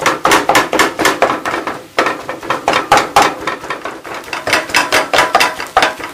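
A flat dosa spatula pressed down hard and repeatedly on shredded parotta and egg in a nonstick frying pan, chopping it into small pieces for kothu parotta: rapid knocks against the pan, about five a second, with a brief pause about two seconds in.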